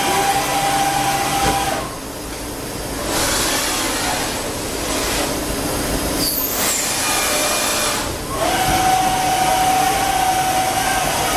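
CNC vertical lathe running, a steady mechanical noise with a high whine that stops about two seconds in and returns about eight seconds in.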